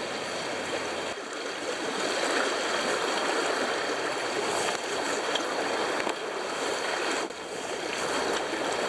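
A high, fast-flowing river rushing over its rocks as a steady, even rush of water.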